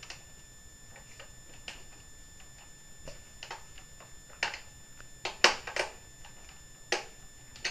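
Scattered clicks and knocks of hard plastic as the parts of a Nerf Vulcan EBF-25 blaster are handled and fitted by hand, about eight in all, irregularly spaced, the sharpest about five and a half seconds in.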